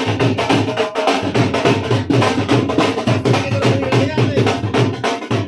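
Dhol drum played in a fast, steady dance beat, with a tune over it.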